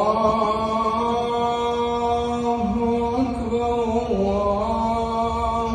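A man's chanting voice over the mosque's loudspeakers. He holds one long note through the whole stretch, shifting pitch slightly a few times.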